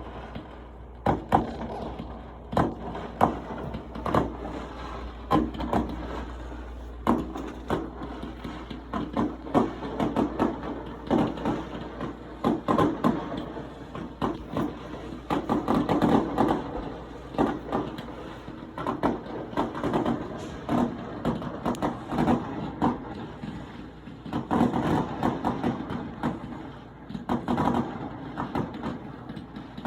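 Fireworks going off one after another: dozens of sharp bangs at uneven intervals, some much louder than others, with a continuous rumble and crackle between them.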